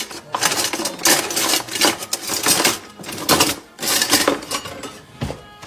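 Metal kitchen utensils clattering and clinking against each other and hard surfaces: a quick, uneven run of sharp clicks and rattles.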